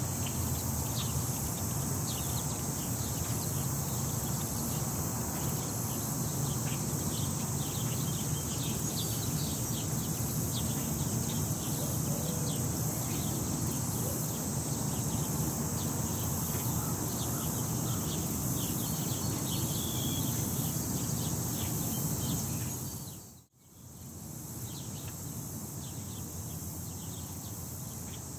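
Outdoor ambience: wind rumbling on the microphone under a steady high hiss and many short high ticks. It cuts out briefly about 23 seconds in and comes back quieter.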